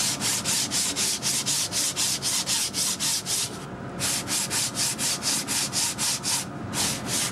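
Hand block-sanding a carbon-fibre motorcycle muffler with a sanding sponge in quick back-and-forth strokes, about four a second, pausing briefly twice. The surface is being roughed to get the low spots out and give it a tooth for the next layer of resin.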